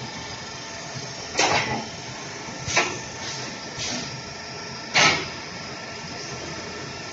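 CNC hydraulic angle iron punching and cutting machine working: a steady hum with four sharp strokes about a second apart, the third one weaker.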